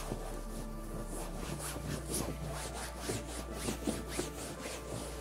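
A cotton cloth rubbed briskly back and forth over velour sofa fabric, wiping off sprayed fabric cleaner. It makes a quick swishing stroke about three times a second.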